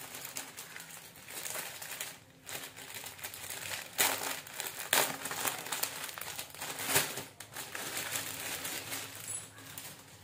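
Plastic clothing packet crinkling and crackling in the hands as it is opened, loudest about four to five seconds in and again around seven seconds.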